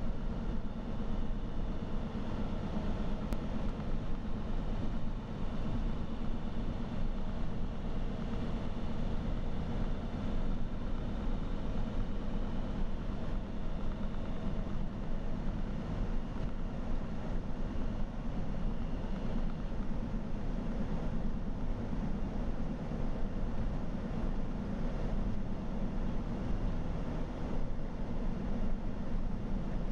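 Steady engine and road noise heard from inside the cab of a vehicle cruising at highway speed, with a low drone and faint steady whines above it.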